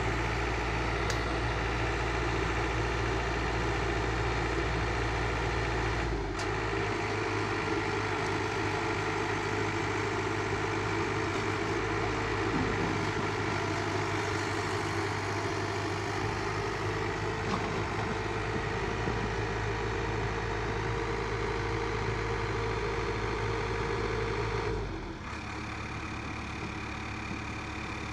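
Komatsu PC71 mini excavator's diesel engine running steadily while the boom and bucket are worked. A steady higher tone joins about six seconds in, and near the end it stops and the engine sound drops lower and quieter.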